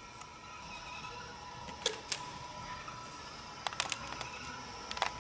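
Several sharp plastic clicks as a two-pole residual-current circuit breaker is handled and snapped onto a DIN rail: one pair about two seconds in, a quick cluster a little later and a last click near the end. A faint steady tone runs underneath.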